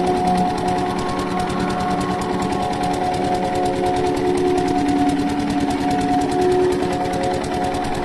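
Single-cylinder diesel engine of an irrigation pump set running steadily with a fast, even chugging.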